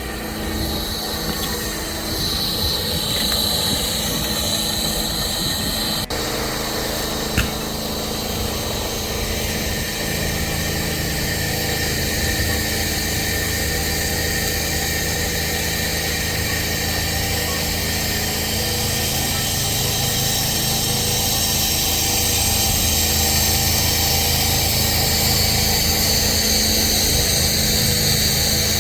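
Small engine of a pressure-washing or sealing spray rig running steadily, with a high hiss over it and one sharp click about seven seconds in.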